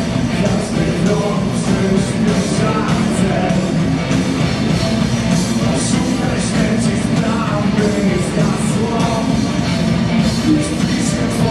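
Live rock band playing: electric guitars, bass and drums with frequent cymbal hits, and a male singer singing into a microphone over them.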